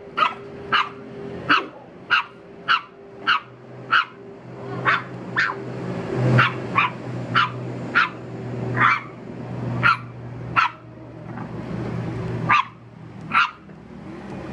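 French bulldog puppy barking again and again, short sharp barks coming about one to two a second, with a brief pause near the end. A steady low hum runs underneath.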